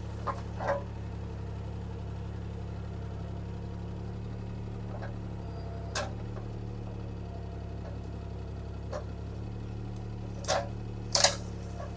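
Bobcat T300 skid steer's diesel engine running steadily. Several sharp knocks and clanks sound over it; the loudest two come near the end.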